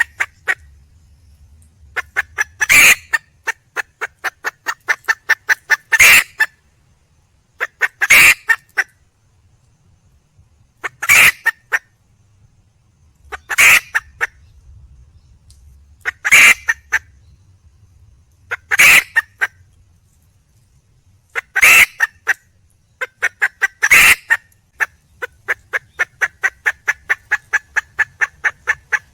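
Red junglefowl hen calling: runs of rapid clucks, several a second, each building into a loud, harsh squawk, repeated about every two and a half seconds. The call of a wild hen seeking a male.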